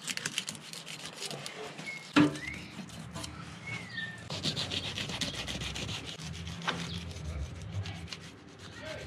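Fillet knife slicing along a longfin tuna's back through skin and flesh, a quick rasping scrape stroke after stroke, with one sharp knock about two seconds in.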